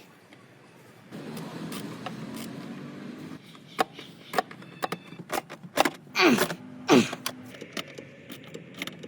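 Mercedes 250 diesel's five-cylinder engine being cranked by the starter for about two seconds without catching, a sign that the hard-start fault is still there after the new glow plug relay. Then comes a run of clicks and knocks, with two short sounds falling in pitch about halfway through.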